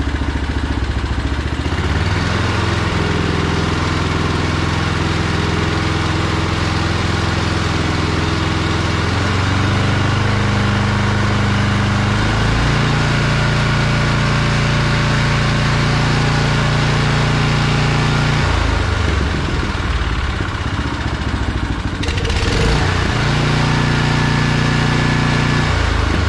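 Briggs & Stratton Snow Series single-cylinder engine on a John Deere snowblower running on a freshly fitted replacement carburetor, its speed stepped up and down with the throttle several times. It settles and holds steady at each higher speed, which the owner takes for a good test run.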